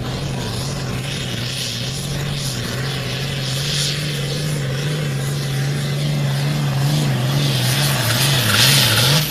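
Turbocharged diesel engine of a red pulling tractor running flat out under load as it drags the weight-transfer sled down the track. Steady high-revving note with a hiss over it, growing louder toward the end, where the pitch wavers up and down.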